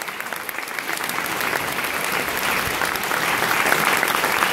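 An audience applauding: many hands clapping together, the applause growing louder over the first few seconds.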